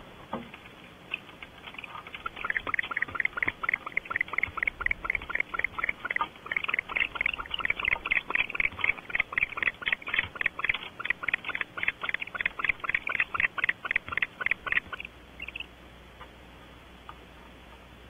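An owl calling in a long, rapid series of short notes, about five a second, for some thirteen seconds before stopping.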